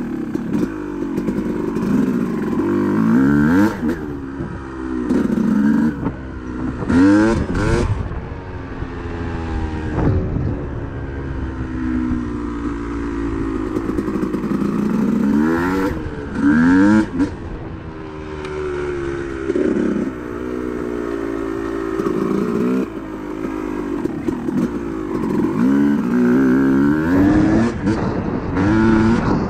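Single-cylinder dirt bike engine revving up and dropping back over and over while riding, with a few clattering knocks in between.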